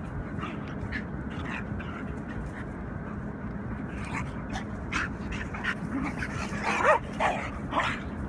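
Two dogs, a German Shorthaired Pointer and a coyote-hybrid dog, play-wrestling with short yips and whines, getting busier and louder in the second half, with a few higher whining yelps near the end.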